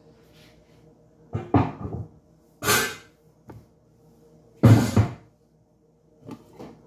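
Knocks and thuds of things being handled close to the microphone: a cluster of knocks, then two short rushing noises, the second with a heavy thud, and a couple of small knocks near the end, over a low steady hum.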